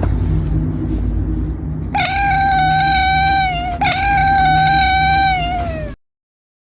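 Cat giving two long, drawn-out meows, one straight after the other, the second falling in pitch at its end, over a low rumbling noise. The sound cuts off suddenly near the end.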